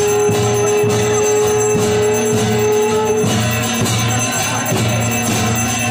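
Ritual sounds of a puja aarti: bells ringing continuously over a steady beat struck about twice a second, with a long held note that stops a little after three seconds in.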